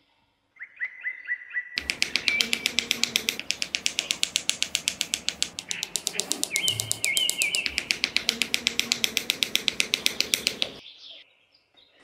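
Rapid, even clicking, about eight clicks a second, starting about two seconds in and stopping near the end, with a few short bird chirps before it and again in the middle.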